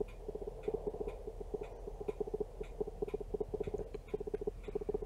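Camera autofocus motor hunting: rapid, irregular clusters of small clicks and buzzing ticks, over and over, as the camera keeps trying to re-focus.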